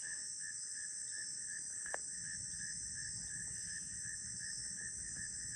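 Insect chorus: a steady high-pitched drone with a lower, pulsing chirr repeating a little more than twice a second. There is a single faint click about two seconds in.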